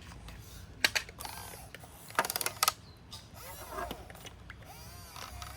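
Toy RC excavator's small plastic gear motors working, with sharp clicks and a rapid clicking rattle about two seconds in, then a faint whine that rises and falls in pitch.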